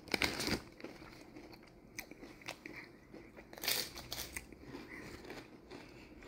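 A person chewing a mouthful of ridged Ruffles All Dressed potato chips, with a loud crunch just after the start and another about two-thirds of the way through, and smaller crackling bites between.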